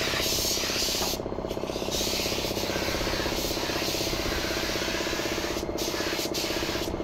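Siphon-feed air spray gun hissing as it sprays paint onto a truck cab, the hiss breaking off briefly a little over a second in and twice near the end. A steady low hum runs underneath.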